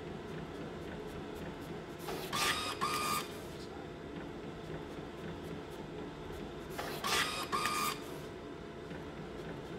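Epson ColorWorks CW-C6500Ae inkjet colour label printer running a print-and-cut cycle. A steady mechanical whir is broken by two louder pairs of short mechanism bursts, one about two seconds in and another about seven seconds in.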